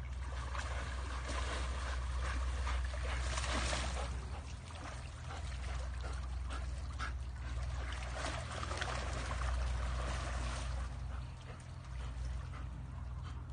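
Water splashing and trickling, an uneven run of small splashes over a steady low rumble.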